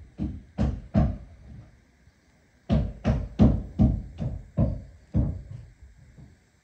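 Hammer blows on wood in quick runs, about two or three strikes a second, with a short pause after the third and the blows getting softer near the end.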